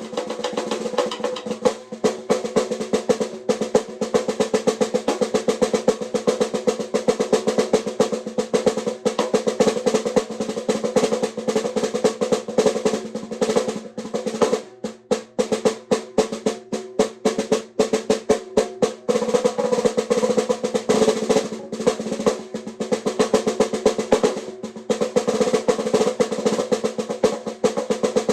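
Stave-built birdseye maple snare drum being played: fast rolls and dense runs of strokes over the drum's steady ring, with a sparser stretch of separate, spaced hits about halfway through.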